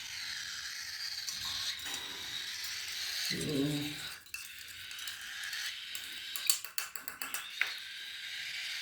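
Cockatiel chicks' continuous raspy, buzzing begging calls for food, with a short louder call about a third of the way in. Near the end comes a quick run of clinks from a spoon stirring the thinned hand-feeding formula in its cup.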